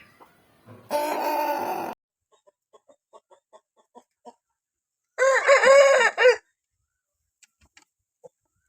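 Parrot-beak Aseel chickens calling: a loud harsh call about a second in, soft clucks, then a longer wavering crow-like call lasting over a second.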